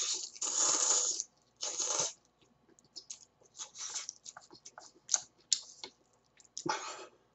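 A person slurping ramen noodles: three loud noisy slurps in the first two seconds, then chewing and lip-smacking with many short clicks, and another slurp near the end.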